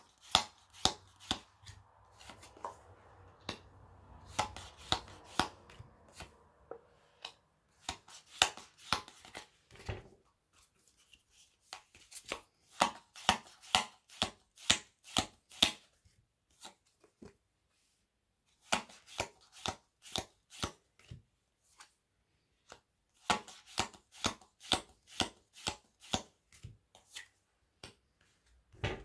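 Round tea-leaf fortune-telling cards being thumbed off a stack one at a time, each card giving a sharp click. The clicks come in runs of two or three a second, broken by pauses of a second or two.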